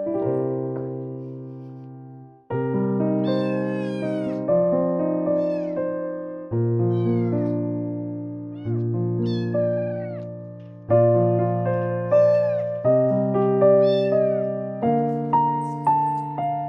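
Scottish Fold kitten mewing repeatedly in short high-pitched cries that rise and fall, over gentle piano music.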